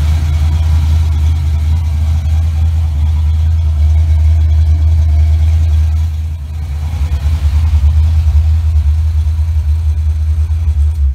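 A 1988 Mustang GT's 5.0 L (302) small-block Ford V8, with a Trick Flow camshaft and Holley Terminator X fuel injection, idling steadily. The idle is set high while the EFI is being tuned.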